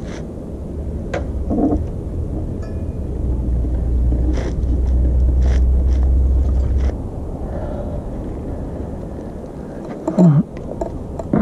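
A low rumble, loudest in the middle, that stops abruptly about seven seconds in, with a few light clicks and taps over it. A short grunt near the end.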